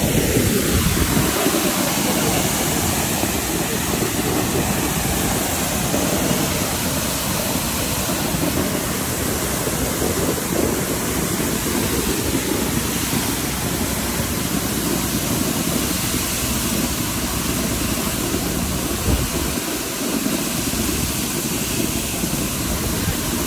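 Water gushing under mains pressure from a sheared-off fire hydrant: a steady, loud rush of spray falling and splashing on the street.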